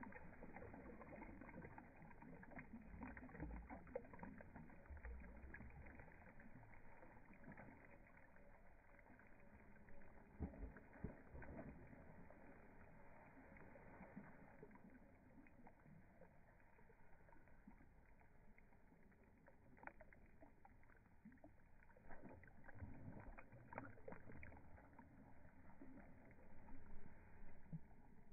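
Faint lapping and sloshing of creek water, with a few soft splashes and small clicks scattered through.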